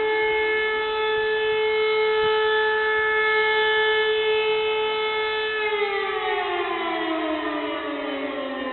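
E57 electric motor siren sounding the steady "Probe" test tone, then winding down about five and a half seconds in, its pitch falling steadily as the rotor slows.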